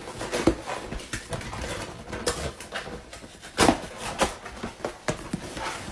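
Corrugated cardboard shipping box being torn open and handled by hand: irregular tearing and rustling with scattered knocks, the loudest at about two and a quarter and three and a half seconds in.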